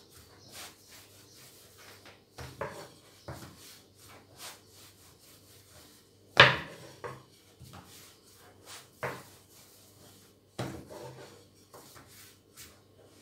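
Hands pressing, patting and rubbing a sheet of yeast dough on a floured countertop, with irregular soft knocks on the counter; the loudest knock comes about six seconds in.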